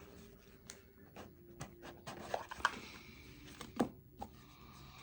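Packaging being handled during an unboxing: light scattered clicks and knocks with some rustling a couple of seconds in.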